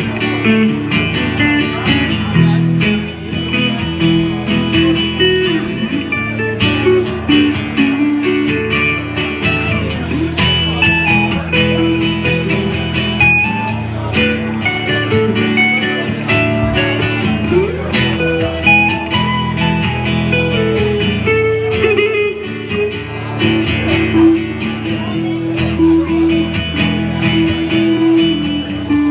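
Acoustic guitar strummed and picked in a live performance, playing an instrumental break between sung verses.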